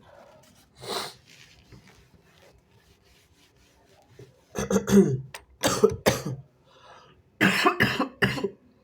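A person coughing and clearing their throat: one short burst about a second in, then two clusters of loud, harsh bursts, one in the middle and one near the end.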